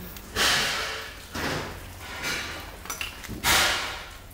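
Loose sheet-metal car body panels clattering and scraping as they are shifted in a pile of scrap parts. There are four noisy bursts, and the first and last are the loudest.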